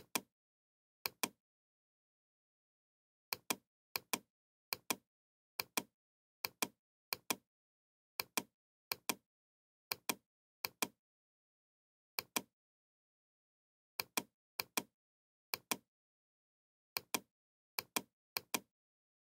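Computer mouse button clicking, each click a sharp press-and-release pair, about twenty at irregular intervals of half a second to two seconds, with dead silence between.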